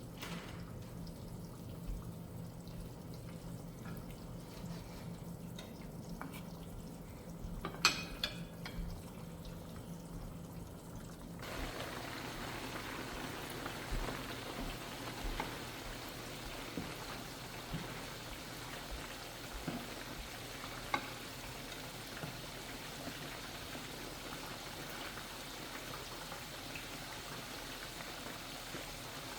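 Chicken frying in hot oil: a steady crackling sizzle that begins abruptly about eleven seconds in. Before it there is a low steady hum with a few clinks, and a short clatter near eight seconds.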